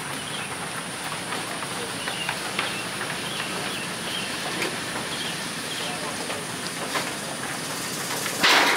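Steady hissing background noise with faint, short high chirps scattered through it, and a brief loud rush of noise near the end.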